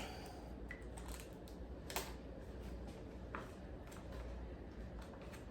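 Light handling noises on a work surface: a few short, sharp clicks and taps, the clearest about two seconds in, over a low steady hum.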